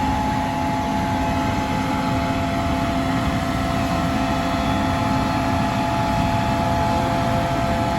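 An engine running steadily: an unchanging mechanical drone with a few constant whining tones over it.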